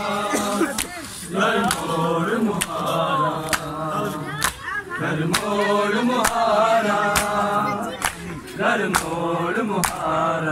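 A group of men chanting a Punjabi noha in unison, unaccompanied. Sharp hand slaps on bare chests (matam) keep a steady beat, a little faster than once a second.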